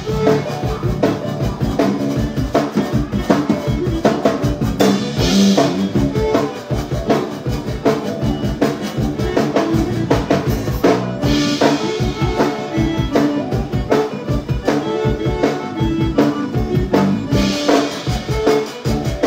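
Live zydeco band playing, with a drum kit's bass drum and snare keeping a steady beat under the rest of the band.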